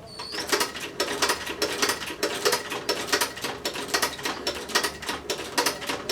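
Sewing machine stitching a brass zipper into a leather jacket, running in a fast, steady run of mechanical clicks as the needle punches through the leather.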